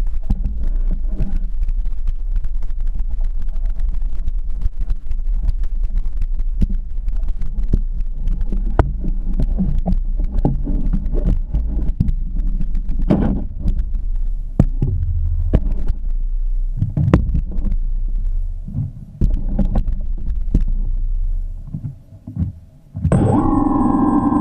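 Low rumble with irregular muffled knocks and thumps from a GoPro in its housing being handled and carried while walking. The rumble stops about 21 s in, and music with sustained notes comes in near the end.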